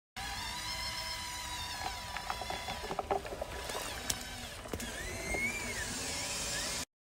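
Small electric motors of RC construction models whining, rising and falling in pitch, with scattered clicks over a low rumble.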